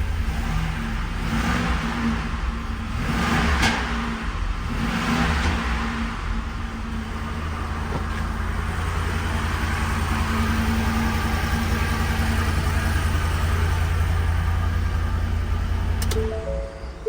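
Ford gasoline V8 truck engine idling, revved briefly three times in the first six seconds, then idling steadily until it cuts off shortly before the end.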